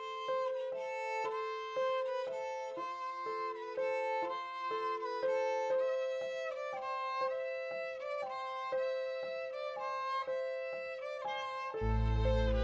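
Instrumental background music: a melody of short notes over a held note. About a second before the end, a louder section with a deep low part comes in.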